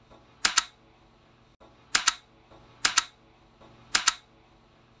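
Computer keyboard keys pressed four times, each press a sharp double click, a second or so apart. It is the space bar being tapped between digits.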